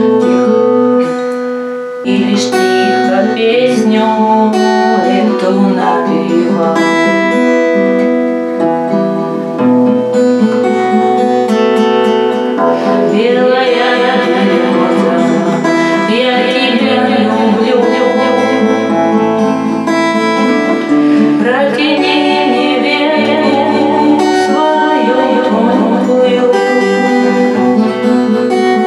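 Woman singing a Russian courtyard-style love song while strumming chords on an acoustic guitar.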